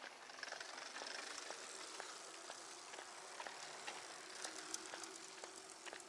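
Footsteps on a paved path, about two a second, under a steady hiss that swells a little under a second in.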